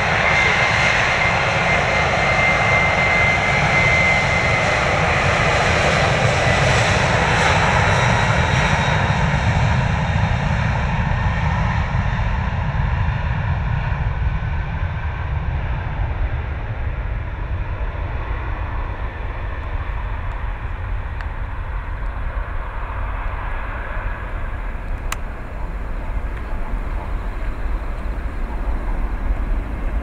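Jet airliner's turbofan engines: a steady high whine over a rushing noise that fades out gradually over the first half as the aircraft moves away, leaving a low rumble.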